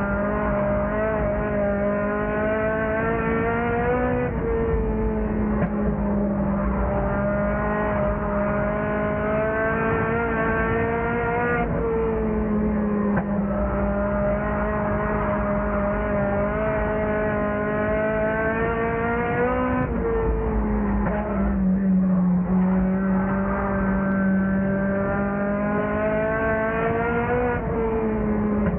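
Race car's four-cylinder engine heard from inside the car at racing speed. The pitch climbs steadily and then drops sharply four times, as the driver lifts for each turn and gets back on the throttle.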